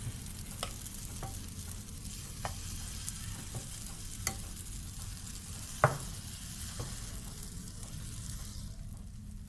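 Vegetable pancake batter sizzling in hot oil in a non-stick frying pan, with a metal spoon tapping and scraping the pan as it spreads the batter out; the loudest tap comes about six seconds in. The sizzle fades near the end.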